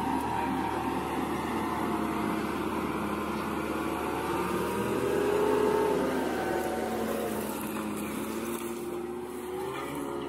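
Range Rover's engine revving under heavy throttle, its note rising and falling, loudest about halfway through, as its wheels spin and throw sand to drive out of deep sand.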